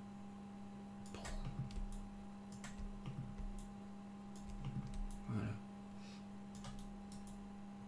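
Scattered faint clicks of a computer mouse and keyboard over a steady low electrical hum.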